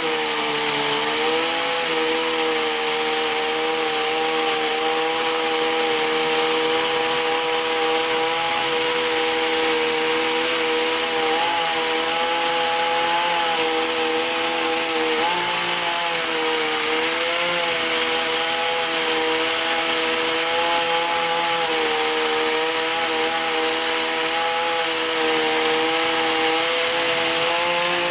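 Gasoline chainsaw running at high revs while cutting a tree, its pitch steady with a few brief dips as the chain loads up in the wood.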